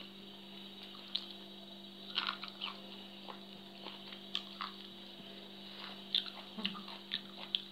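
Wet eating sounds: scattered short smacks and squishy clicks as spicy papaya salad is chewed and picked apart with the fingers, over a steady low hum.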